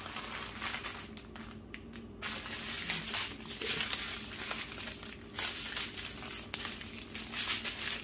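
Small plastic bags of diamond-painting drills crinkling and rustling as they are handled and packed, in irregular crackles.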